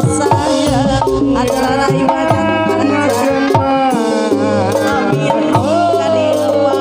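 A live Sundanese band playing: kendang hand drums beating a steady rhythm under an electronic keyboard, with a melody of sliding, ornamented notes, including one long note that rises and falls near the end.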